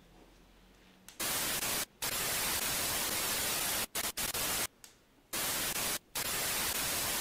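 Television static hiss from a set with no signal. It starts sharply about a second in and cuts off and back on several times as the remote is pressed.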